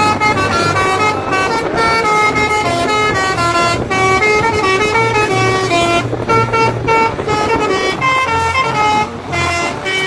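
Tour bus 'basuri' musical horn playing a fast tune of stepping notes, with a low rumble underneath.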